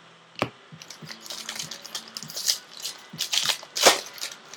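Trading cards and pack wrapping being handled: irregular rustling and small clicks, a few sharper ones, over a faint steady hum.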